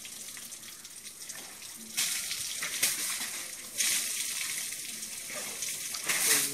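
Water from a garden hose, worked by an Asian elephant bathing itself, hissing and splashing onto itself and the muddy ground, with louder gushes about two seconds in, near four seconds, and near the end.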